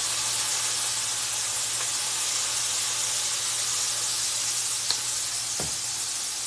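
Liquid smoke splashed into a hot nonstick frying pan of chicken strips, hissing and sizzling as it flashes to steam. The hiss holds steady and eases only a little toward the end, with a light click about five seconds in.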